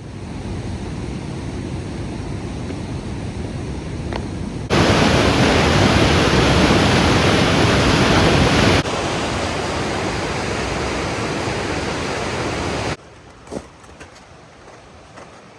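Waterfall swollen with spring snowmelt, a steady rush of falling water heard in several cuts. It jumps louder about a third of the way in, drops back a little past halfway, and turns much quieter near the end.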